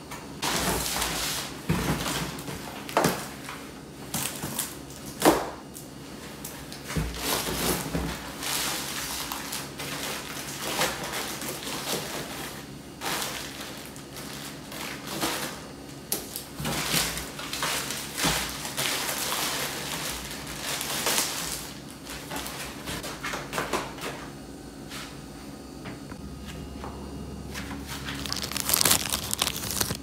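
Groceries handled and set down on a wooden counter: packaging rustling as boxes, bags and bottles are moved, with irregular knocks and thuds, the sharpest about five seconds in.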